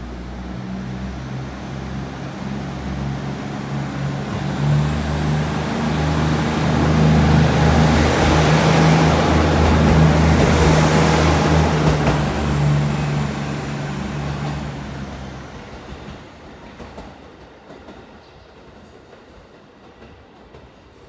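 Diesel railcar departing under power: the engines run with a steady low drone that grows louder as the train passes close by, peaking about halfway through. The engine tone stops a few seconds later and the train's rumble fades away.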